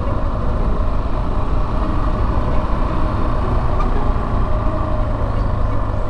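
Yamaha Serow 250's air-cooled single-cylinder four-stroke engine running steadily while the bike is ridden down a forest road, with a constant low rumble under it.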